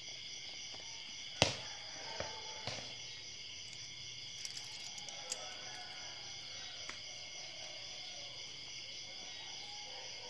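Steady high-pitched insect chorus, with one sharp knock about a second and a half in and a few fainter taps after it.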